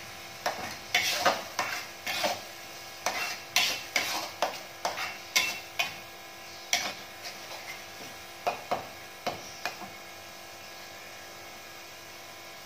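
Metal ladle stirring spice paste in a metal wok, with irregular clinks and scrapes against the pan over a steady sizzle as the paste is sautéed. The stirring stops about ten seconds in, leaving only the sizzle.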